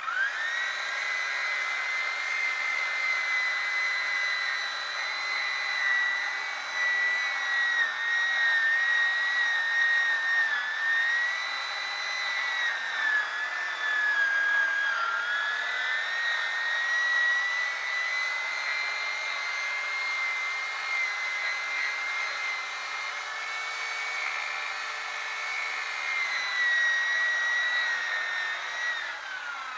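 Chainsaw running at high revs while bucking a large log into firewood rounds. Its high whine sags in pitch for a few seconds around the middle as the chain bites into the wood, then recovers, and drops away near the end as the throttle is released.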